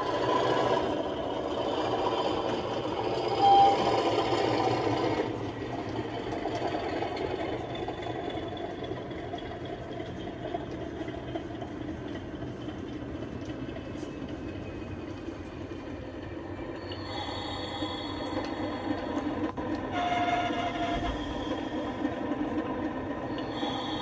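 Sound-fitted model diesel locomotive playing its digital diesel engine sound through its onboard speaker as it runs along the track, with a short horn sound about three seconds in and another about twenty seconds in.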